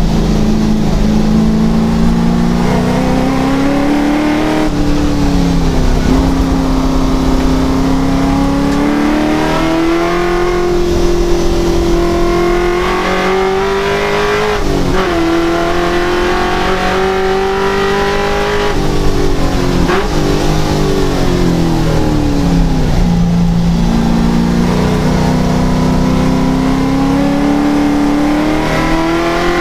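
Touring race car's engine heard from inside the cockpit at racing speed, its pitch repeatedly climbing under acceleration and dropping sharply at gear changes, and falling away more slowly as it slows for corners.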